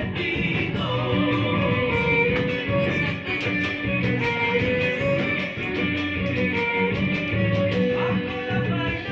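Live folk band playing an instrumental passage of an Argentine gato: strummed acoustic guitars and bass keep a steady, lively beat under a held melody line.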